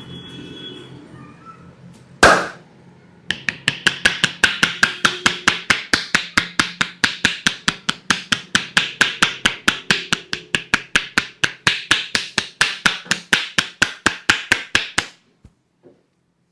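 Hands striking a person's head in Indian head-massage tapotement. There is one sharp loud slap, then a rapid, even run of hollow slaps at about four a second that stops suddenly.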